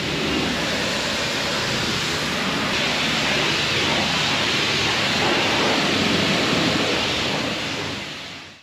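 High-pressure water spray from a car wash wand striking a vehicle, a steady hiss that fades away near the end.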